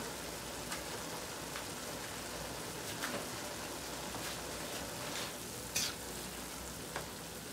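A pot of chopped cabbage, carrot and celery cooking down on the stove, sizzling steadily after about five minutes covered. A few light clicks of a spoon stirring it come through the sizzle.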